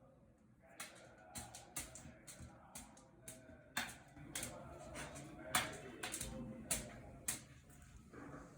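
Irregular sharp clicks and taps, about two a second, starting about a second in and stopping shortly before the end, in a small room.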